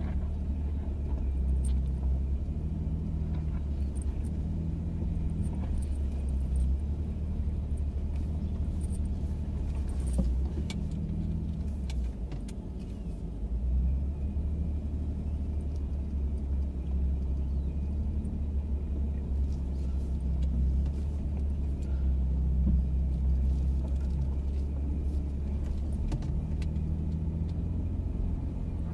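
Ford F-150 Raptor's twin-turbo V6 running at low revs as the truck crawls over rock, heard from inside the cabin as a steady low rumble that eases briefly about halfway through. Scattered small clicks and rattles sound over it.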